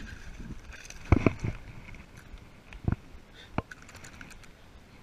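A hooked bass being reeled up to the side of an aluminium jon boat, with splashing and a few sharp knocks: two close together about a second in, then single ones near three seconds and half a second after, and faint clicks near the end.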